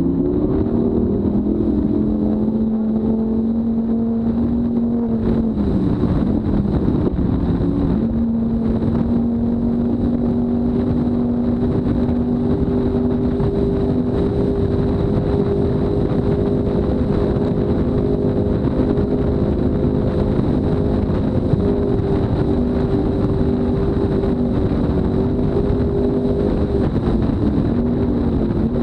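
Mercury 300R V8 outboard running hard, pushing a speedboat at high speed: a steady engine note over a constant rush of noise. About six seconds in the pitch drops briefly and climbs back, and it dips slightly again near the end.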